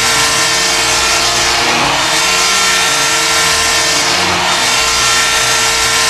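Canisius College Golden Griffins goal horn sounding one long, loud, continuous blast: a steady tone under a harsh, noisy roar.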